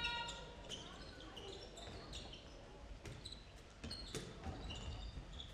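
Faint irregular thuds of a handball bouncing on a sports hall floor during play, with scattered short shouts from the court, echoing in the large hall.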